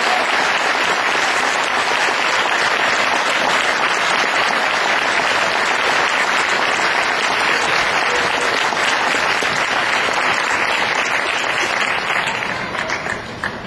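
Audience applause: dense, steady clapping that thins out and dies away near the end.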